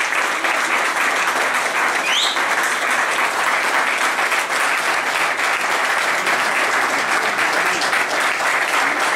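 Audience applauding steadily after a drum performance, with a short rising whistle from the crowd about two seconds in.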